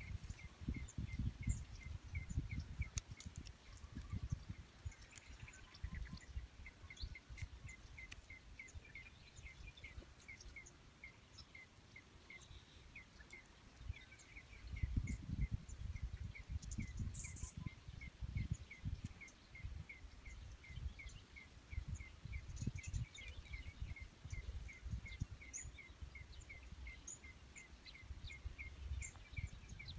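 Outdoor rural ambience: a small creature's short high chirp repeated steadily, about two or three times a second, over faint scattered chirps and irregular low rumbling on the microphone.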